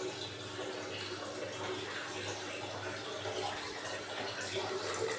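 Kitchen background noise: a steady rushing sound over a low, even hum.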